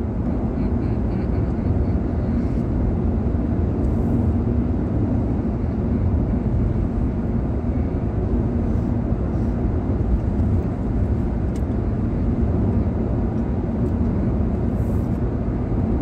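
Steady in-cabin road noise of a Hyundai Venue cruising on an expressway: an even low rumble of tyres, wind and engine.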